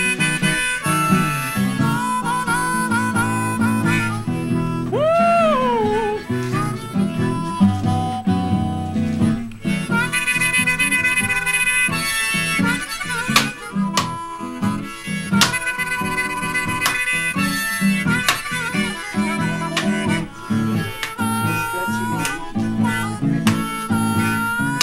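Harmonica and acoustic guitar music, the harmonica playing a melody with one note bent up and back down about five seconds in.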